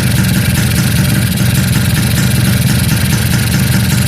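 Kawasaki GTO 125's single-cylinder two-stroke engine idling steadily, running while its two-stroke oil pump is worked by hand to bleed air from the oil line.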